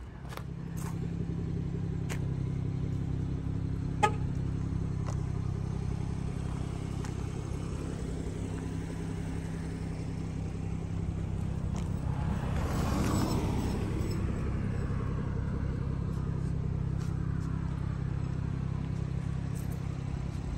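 A 2019 BMW 440i Gran Coupe's B58 turbocharged inline-six idling steadily. About four seconds in there is a single click, and another vehicle swells past between twelve and fourteen seconds in.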